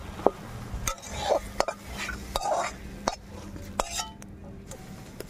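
Metal spatula scraping and clinking against a metal kadai and a steel plate as cooked greens are scooped out and served. About seven sharp clinks, roughly one every two-thirds of a second, with short scrapes in between.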